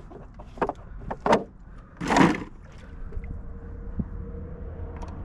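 Clicks and knocks of a wrench working on a small Suzuki outboard's spark plug as it is refitted. There is a louder, half-second rasping noise about two seconds in, and a faint steady hum from about two and a half seconds on.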